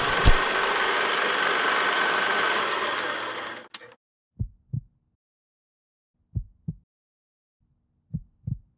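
A steady, loud rushing rattle that cuts off suddenly after about three and a half seconds. Then a heartbeat sound effect: low double thumps, lub-dub, three times, about two seconds apart.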